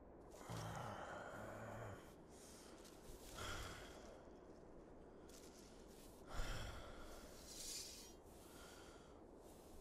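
A man's faint breaths and sighs as he comes round lying face down, about four of them a couple of seconds apart, the loudest a little after the middle.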